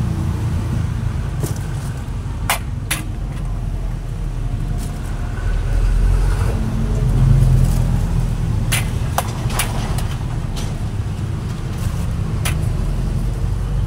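Metal ladle clinking against a large steel wok while scooping out saucy capcay: a few sharp clinks, a pair about two and a half seconds in, a quick cluster around nine seconds and one more near the end, over a steady low rumble.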